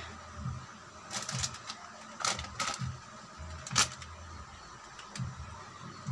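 A few scattered light clicks and taps, the sharpest near the middle, over a faint steady hum: small handling noises.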